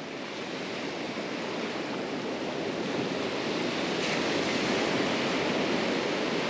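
Beach surf washing in over flat sand, a steady rush of broken waves and foam that swells slowly, with a brighter hiss from about four seconds in as more wash arrives.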